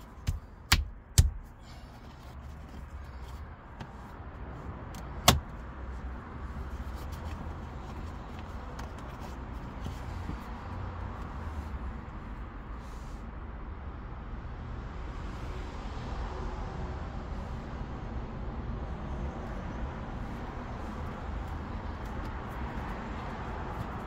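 A few sharp clicks from the manual gear lever and its newly fitted knob being handled, three in quick succession right at the start and one more about five seconds in, over a steady low rumble in the car's cabin.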